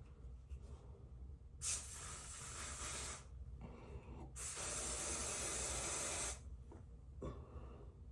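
Two long hissing sprays of a hair product, about a second and a half and then about two seconds long, with a short gap between them.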